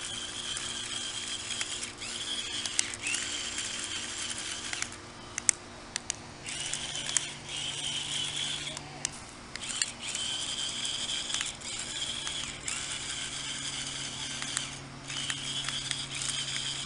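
Sharper Image Robotosaurus remote-control T-Rex's small battery motor and plastic gears whirring in runs of a few seconds, with short stops and sharp clicks between them, as the toy is driven about by remote.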